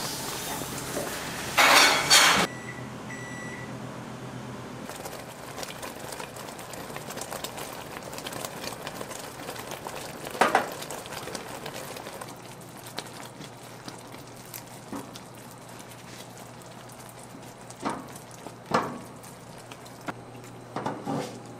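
Kitchen work noises: a loud, brief noisy burst about two seconds in, followed by two short high beeps, then a steady low hum with a few sharp knocks of utensils or dishes.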